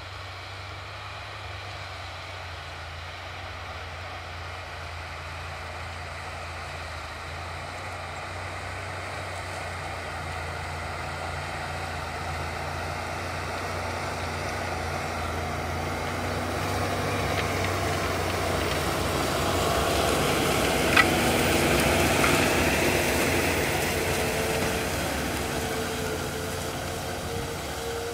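Farm tractor's diesel engine working under load as it pulls a Lemken Rubin 9 disc harrow through tall cattails, a steady hum that grows louder as the machine approaches, is loudest about three quarters of the way in, then eases slightly. A single sharp click sounds at the loudest point.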